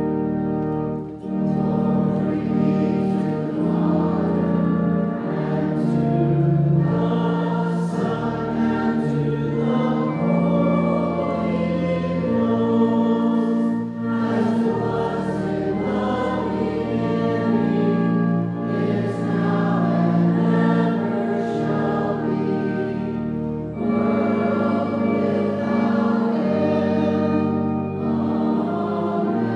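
Congregation singing with organ accompaniment: steady held chords that change every second or two.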